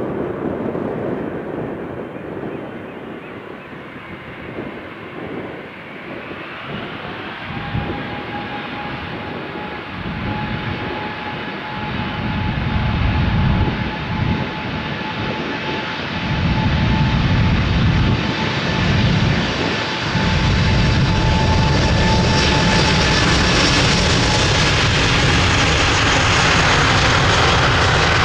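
Airbus A380-800's four Engine Alliance GP7200 turbofans spooling up to takeoff power for the takeoff roll. A whine rises in pitch about six seconds in and then holds steady, while a deep rumble builds and turns loud and steady from about halfway through.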